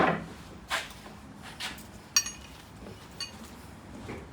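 Metal ratchet strap hardware clinking as it is handled: two short, ringing metallic clinks about a second apart, the first about two seconds in and the louder of the two, with faint rustling of handling before them.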